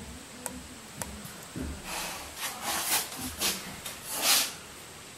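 Oil can with a flexible spout squirting cutting oil onto a hand pipe-threading die, to lubricate the cutters as they cut the thread. About five short squirts come in the second half, the last one the loudest, after a couple of light clicks.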